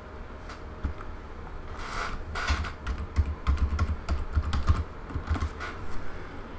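Typing on a computer keyboard: a quick, uneven run of keystrokes, starting about two seconds in, after a few scattered clicks.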